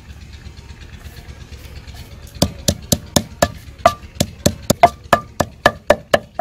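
Wooden pestle pounding chopped green coriander in a heavy stone mortar for chutney: after about two and a half seconds a steady run of sharp knocks starts, about four strikes a second.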